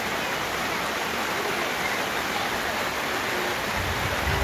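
Steady rush of a river flowing over rocks, with a low rumble near the end.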